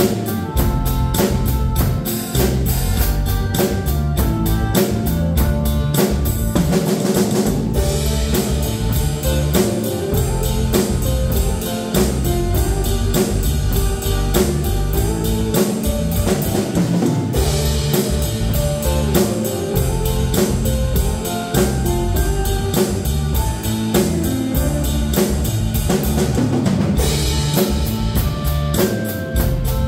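A Tama acoustic drum kit played in a steady beat, with kick drum and cymbals, along to a recorded pop backing track with guitar.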